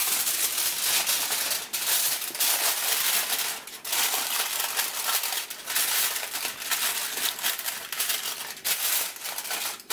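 Aluminium foil crinkling and crackling as hands press and crimp it down over the rim of a bowl, with a few brief breaks.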